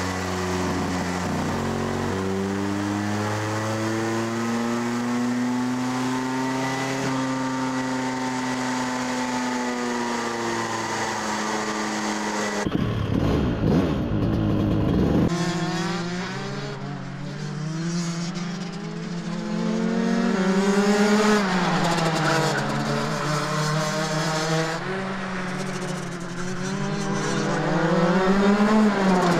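A kart engine running on an engine dyno, its pitch slowly rising and then easing back down. After a cut about 13 seconds in, two-stroke racing kart engines rev up and down through corners, loudest near the end.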